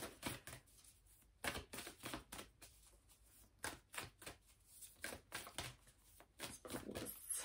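A deck of oracle cards being shuffled by hand: a long run of quick, irregular card flicks and rustles, bunched in short clusters with brief pauses.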